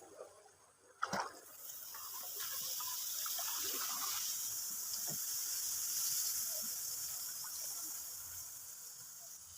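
Water pouring and splashing, after a sharp knock about a second in; the rush swells, holds for several seconds and then fades.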